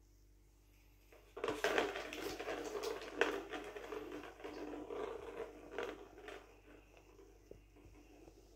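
Small plastic ball rolling around the plastic track of a cat circuit toy after a kitten bats it: a continuous rattle with a few sharper clicks that starts about a second and a half in and fades out over the next five seconds.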